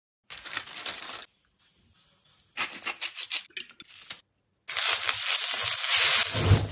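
Food-preparation handling noises: two short bursts of rapid scratchy rustling or scraping, then a louder steady hiss from about the middle on.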